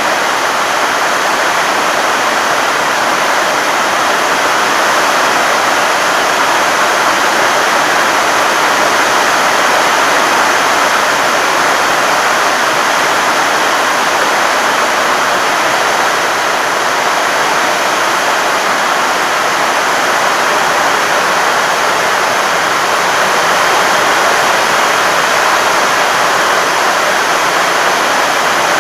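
Heavy rain pouring down in a storm: a loud, steady hiss of falling water.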